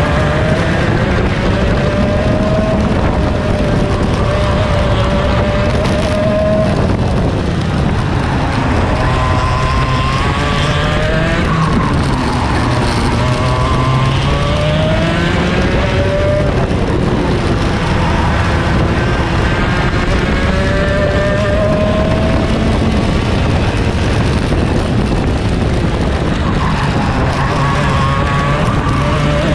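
Onboard sound of a two-stroke racing kart engine at race pace. The pitch climbs along each straight and drops off into the corners, over and over.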